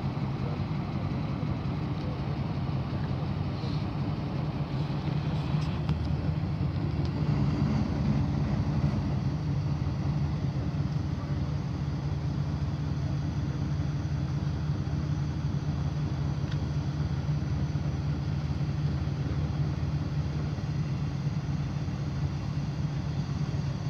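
Heavy construction machine's diesel engine running steadily with a low, even drone, a little louder about eight seconds in.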